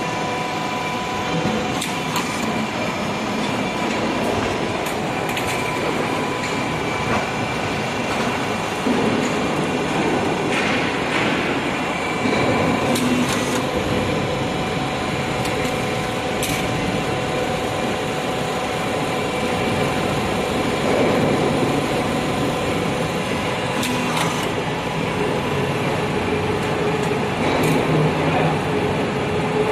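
Steel rail roll forming machine running: a steady mechanical drone from the drive and forming rollers with several held tones in it, broken by occasional sharp knocks.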